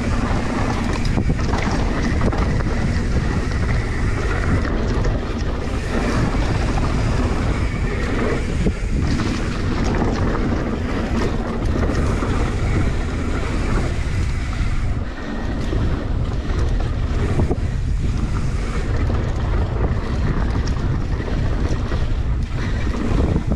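Wind buffeting the microphone of a mountain biker's camera, with the steady rumble of the bike rolling down a dirt singletrack.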